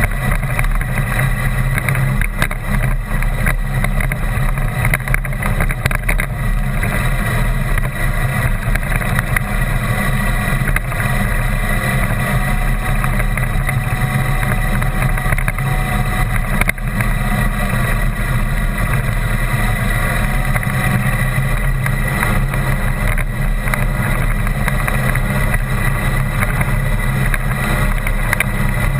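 Vehicle engine running steadily at an even cruising speed while driving over a rough gravel dirt track, with frequent small knocks and rattles from the bumpy surface.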